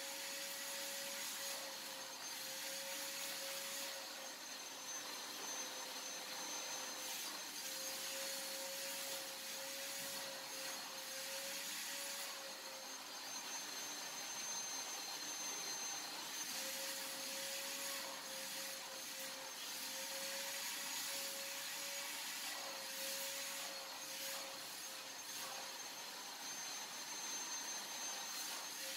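Shop vacuum running steadily, its nozzle drawn over foam boards to suck up dust and debris. A whistle in the airflow wavers and drops out for a few seconds twice.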